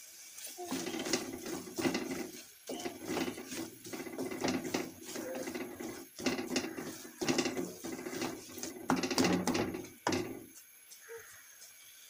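Wooden spatula scraping and stirring shredded chicken filling in a metal pan, in repeated irregular strokes with short pauses, stopping about ten and a half seconds in.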